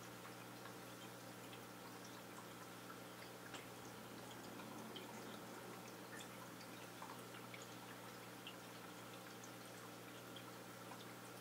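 A running aquarium, heard faintly: a steady low hum with scattered small ticks and drips of water.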